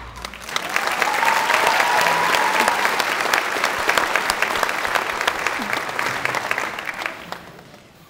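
Audience applauding at the end of a choir song, the clapping swelling quickly and fading away over the last couple of seconds, with a brief cheer early on.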